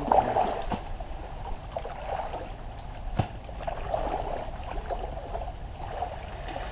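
Muddy pond water sloshing and splashing irregularly as several people wade and work through it by hand, with one sharp knock a little over three seconds in.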